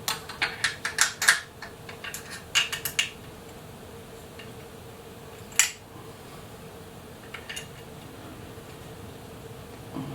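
Metal wrench clinking against a bolt and the metal fender bracket of an e-bike as the bolt is tightened: quick irregular clicks through the first three seconds, then a single sharp clink a little before six seconds in.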